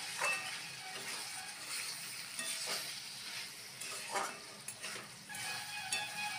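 Chicken in thick masala sizzling in a nonstick wok while a spatula stirs and scrapes it, with a few separate strokes across the pan. The chicken is being cooked down as chicken kosha.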